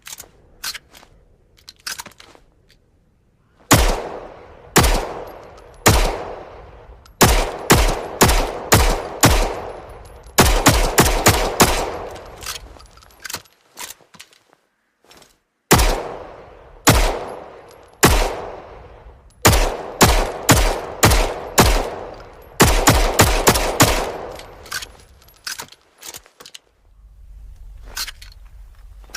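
Browning Hi-Power semi-automatic pistol fired in two long strings of shots, each shot with a long echoing tail. Each string opens with shots about a second apart and quickens to about three a second. A few faint clicks come near the start and toward the end.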